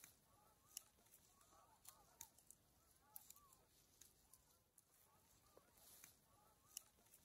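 Near silence, with faint sharp clicks from a knife shaving thin curls off a wooden feather stick. Faint, short wavering calls sound in the background throughout.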